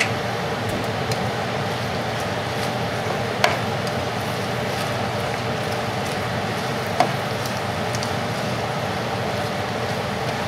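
Baby spinach hissing softly as it wilts in butter in a hot skillet while it is stirred with a plastic spatula. A few sharp clicks of the spatula against the pan, the loudest about a third of the way in and another about two-thirds in.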